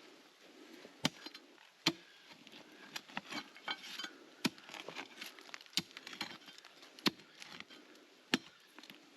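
About a dozen sharp, irregular knocks and clicks, like hard objects being struck or tapped, with faint rustling and scraping between them.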